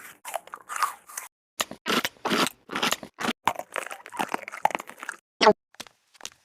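Om Nom-style cartoon munching sound effect: a quick, irregular run of crunchy bites and chewing that thins out near the end.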